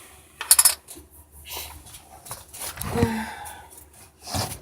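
Short rustles and crinkles of a trading-card collection box's packaging being handled, in several separate bursts with the loudest about half a second in, and a brief vocal sound about three seconds in.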